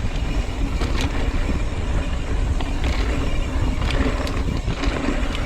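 Mountain bike rolling fast over a dirt trail, with wind buffeting the microphone as a steady low rumble and a few sharp rattles of the bike over bumps.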